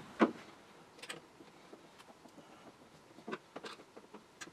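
Scattered light clicks and knocks of a screwdriver and hinge being worked while a cabinet door is hung, with one sharper knock just after the start.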